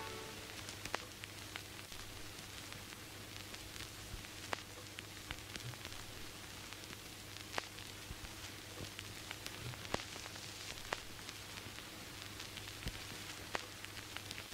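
Low static hiss with a steady hum and scattered clicks and crackles, the sharpest a few seconds apart.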